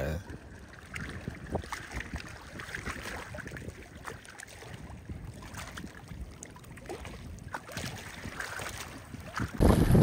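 Small waves lapping and sloshing close to the microphone, an uneven wash of water with small splashy ticks. Just before the end it jumps to louder, low wind buffeting on the microphone.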